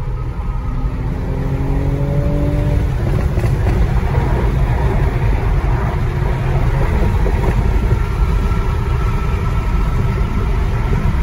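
Toyota Supra's engine pulling hard at highway speed, heard inside the cabin over heavy road rumble; its pitch climbs over the first few seconds, then it runs on steadily.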